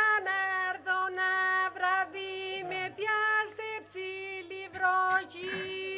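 A woman's voice singing a folk song without accompaniment, in long held notes with short breaks between phrases.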